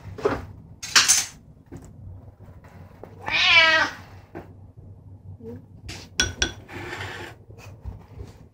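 A cat meows once, about three and a half seconds in. Around it come sharp scrapes and clinks of a plastic spoon scooping wet food out of a metal can onto a plate.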